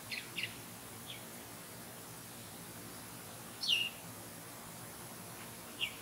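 A small songbird calling in the open: a few short, separate notes that slide down in pitch. The longest and loudest falls about two-thirds of the way through.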